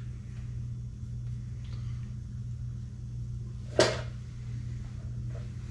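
Steady low hum of background machinery or electrical hum, with a single sharp knock a little under four seconds in.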